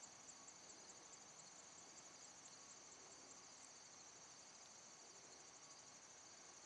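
Faint, steady high-pitched chirping of crickets, a fast even pulsing, over a low background hiss.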